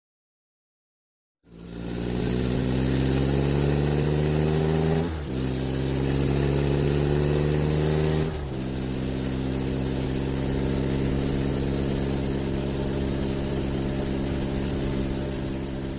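Electric motors and gearing of a LEGO Technic RC car whining as it drives: a steady hum that starts about a second and a half in, rises slightly in pitch and breaks off briefly twice, about five and eight seconds in.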